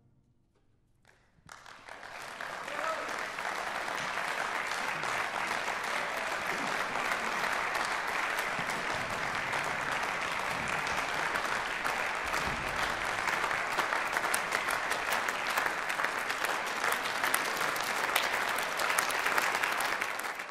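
After a moment of near silence, audience applause breaks out about a second and a half in and carries on steadily, dense and even, fading right at the end.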